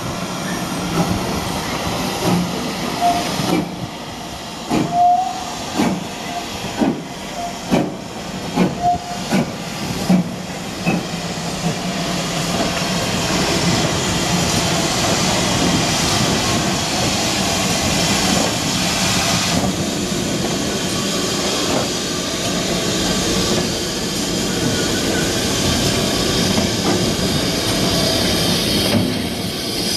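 GWR Modified Hall 4-6-0 steam locomotive No. 6990 Witherslack Hall moving slowly with steam escaping at its cylinders. Irregular puffs of exhaust sound over the first ten seconds or so, then a steady hiss of steam.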